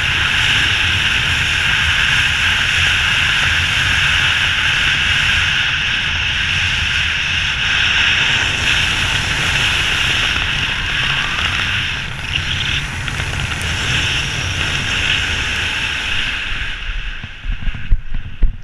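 Steady wind rushing over a helmet camera's microphone as a skydiver glides down under an open parachute. About seventeen seconds in the rush drops away and a run of irregular heavy thumps follows as the skydiver's feet touch down on the grass.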